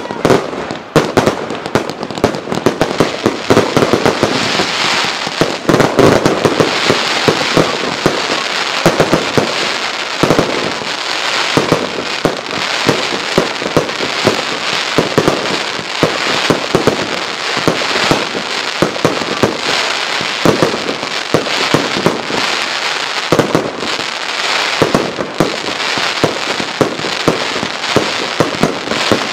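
Fireworks going off in a dense, unbroken barrage: many sharp bangs in quick succession over a steady crackle from bursting gold crackling stars.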